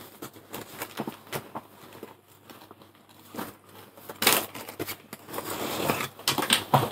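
Rustling and crinkling of a fabric backpack and the plastic bags and packaging inside it as hands rummage through them, in irregular handling noises with small clicks. It gets louder about four seconds in and again near the end.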